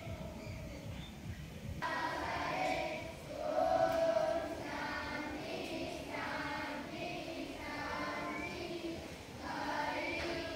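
A group of children singing together in long held phrases with short breaks, starting about two seconds in.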